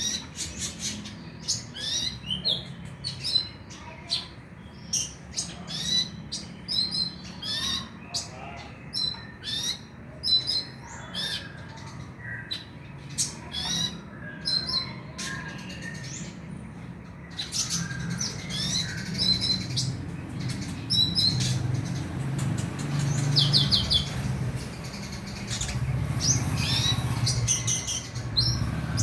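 Kolibri ninja (konin) sunbird calling: sharp high chirps about once a second, turning into a denser twittering song with a quick trill about two thirds of the way through. A low hum comes up under the song in the second half.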